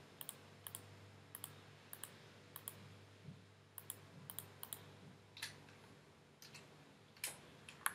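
Faint clicks of a computer mouse, many times at irregular intervals and often in quick pairs, as polygons are selected one after another. A low steady hum runs underneath.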